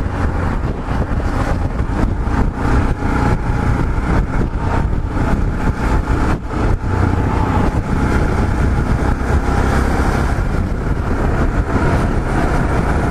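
Motorcycle riding at road speed: the Yamaha XT 660Z Ténéré's single-cylinder engine running steadily under a rush of wind on the microphone, with an uneven flutter.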